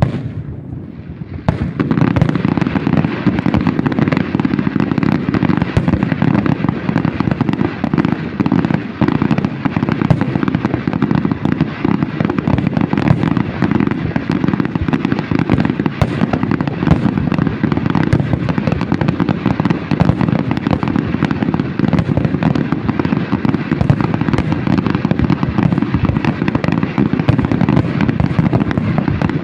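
Fireworks bursting in a dense, continuous barrage of rapid bangs and crackles, picking up about a second and a half in.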